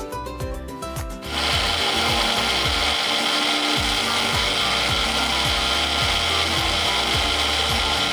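Preethi mixer grinder starting about a second in and running steadily, its small stainless steel jar grinding mint leaves, ginger, soaked almonds and peppercorns with a little water into a paste. Background music with a steady beat plays at the start and continues faintly under the motor.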